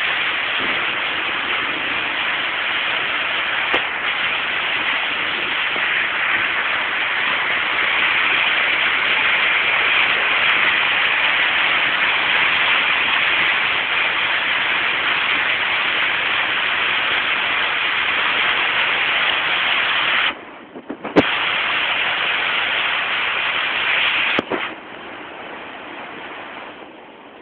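Heavy rain coming down steadily. It cuts out briefly about twenty seconds in, then falls to a lower level after a sharp click near the end.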